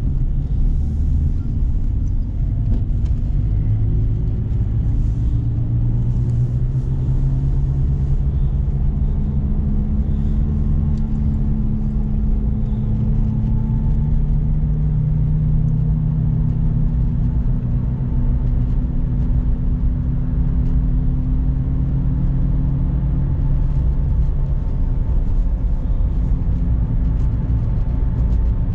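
Renault Clio Symbol's engine and road noise heard from inside the cabin while driving: a steady low drone. Its pitch climbs slightly after about eight seconds, holds, then eases off after about twenty-four seconds.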